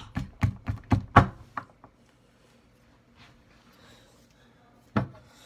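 Machete blade striking a stress ball and the hard surface beneath it: a rapid series of sharp knocks, about four a second for a second and a half, then one more knock near the end.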